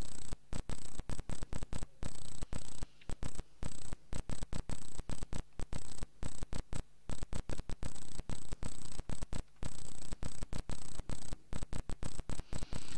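Electrical hum and hiss from a microphone sound system, with a faint steady high whine, cutting on and off irregularly several times a second like crackling static.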